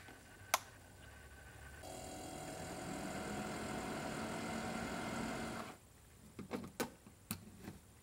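A portable 12-volt fridge is switched on with a sharp click of its power button. About two seconds in, its cooling unit starts and runs with a steady hum, then cuts off suddenly, followed by several small clicks of a plug and socket cap being handled at a 12 V outlet panel.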